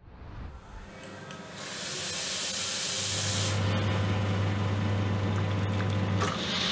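Commercial espresso machine running: a loud hiss for about two seconds, then the pump humming steadily as a shot of espresso pours into a cup, the hum stopping near the end.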